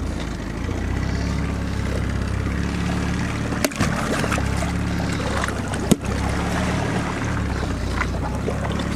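Boat engine idling steadily with a low hum, with two short sharp knocks, about four and six seconds in.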